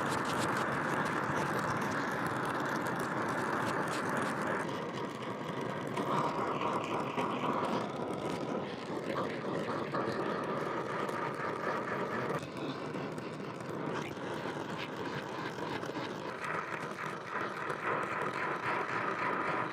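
Oxy-acetylene torch with a number 4 tip burning with a steady hiss as it heats a cylinder head to about 350 degrees for fitting valve guides. The tone of the hiss shifts several times, as the flame is moved.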